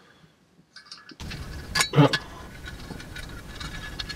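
Light metallic clicks and scrapes of a hand bit driver on the end-cap screws of a small electric motor, with one sharp clack about two seconds in. A steady background hiss starts about a second in.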